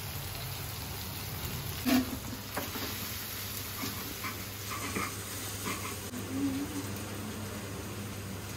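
Cooked noodles being scraped from a metal strainer into a frying pan and stirred with a wooden spatula: soft scraping and stirring with a few knocks of utensils against the pan, the loudest about two seconds in, over a steady low hum.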